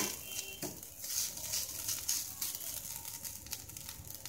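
Metal spatula stirring and scraping grated coconut as it fries in ghee in a nonstick pan, a dry rustling stroke about twice a second.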